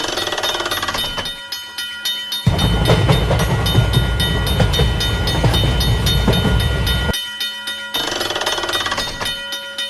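Railroad crossing alarm ringing with rapid repeated strokes over steady tones. A train rumbles past through the middle, starting about two and a half seconds in and stopping about seven seconds in.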